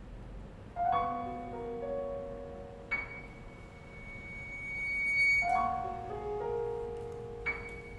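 String quartet and piano playing the soft opening of a medley: a chord builds note by note about a second in and again near the middle, and a high note is held after each chord.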